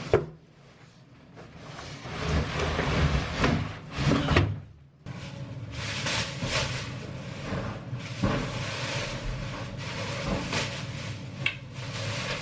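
Clear plastic wrapping rustling and crinkling as it is pulled off a metal-cornered storage trunk, with a few knocks as the trunk is tipped over and handled.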